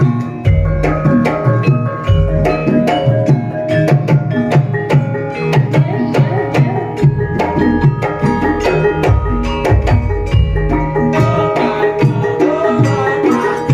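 Javanese gamelan ensemble playing a gending: many bronze metallophone tones ringing and overlapping, over repeated deep drum strokes.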